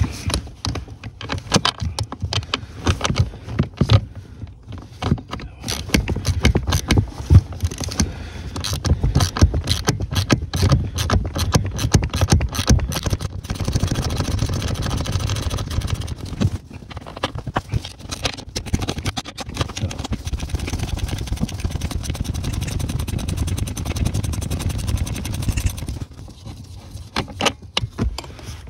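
Socket ratchet wrench clicking as a bolt in a car's pedal box is undone, with the tool knocking and scraping against the metal pedal bracket. Irregular clicks and knocks come first. From about halfway there is a fast, even run of ratchet clicks lasting some twelve seconds.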